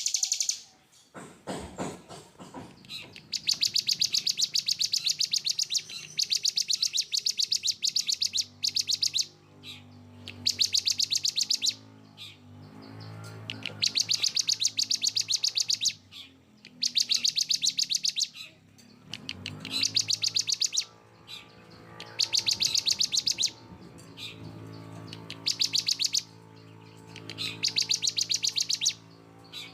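Songbird masteran song made of 'tembakan' phrases: about ten high-pitched bursts of fast, harsh, rapidly repeated notes, each one to two seconds long with short pauses between. A lower, steady layered tone that changes pitch in steps runs beneath from about a third of the way in.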